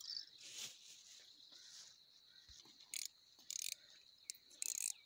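Spinning fishing reel being cranked in a few short spurts as line is wound in, starting about three seconds in, over a steady high chirring of insects.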